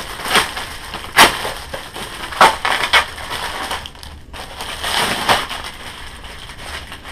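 Clear plastic packaging bag crinkling and rustling as it is handled and pulled away from a laptop sleeve, in several separate crackles. The loudest come about a second in and again near halfway.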